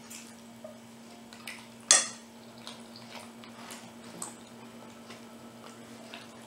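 Eating at the table: soft scattered mouth and chewing clicks, and about two seconds in one sharp clink of tableware that rings briefly. A faint steady low hum runs underneath.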